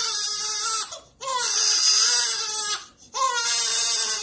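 Newborn baby crying hard in long high wails, each broken off by a short breath, three cries in all, while blood is squeezed from his pricked heel for a newborn blood-spot test.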